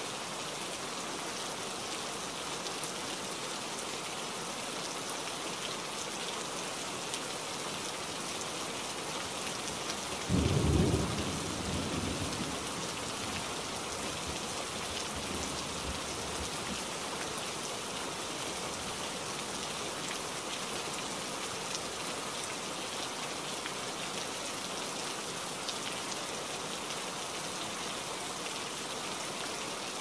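Heavy rain falling steadily on forest foliage, a dense even hiss. About ten seconds in, a sudden low thunderclap breaks out and rumbles away over a few seconds.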